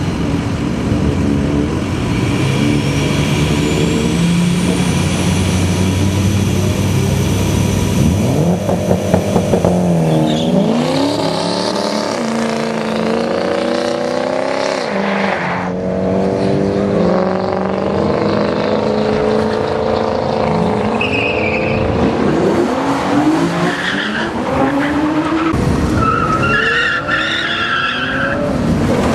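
Diesel pickup truck engines at a drag race: a steady high-revving drone for the first several seconds, then a sudden louder launch about nine seconds in. The engines then accelerate away, their pitch climbing and dropping again and again through the gear changes.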